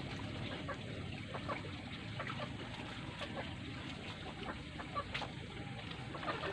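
Chickens clucking in the background, with a few faint knocks and water sounds from a wooden dugout canoe being paddled.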